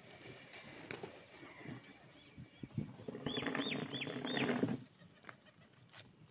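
A flock of domestic pigeons scuffling and flapping on a concrete rooftop, with scattered short flaps and taps. About three seconds in, a loud animal call lasts about a second and a half, with four quick rising-and-falling notes on top.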